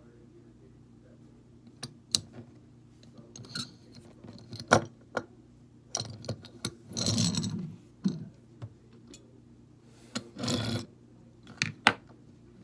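Die-cast toy cars being handled on a wooden tabletop: sharp clicks and knocks as they are picked up, turned over and set down, with two longer scrapes about seven and ten seconds in.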